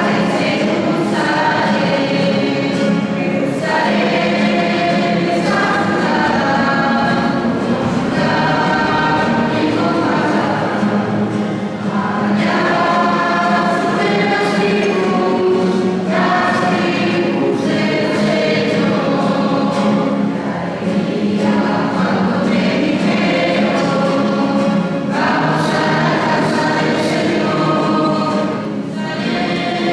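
Church choir singing a hymn, held notes moving from one to the next every second or so over a steady low sustained tone.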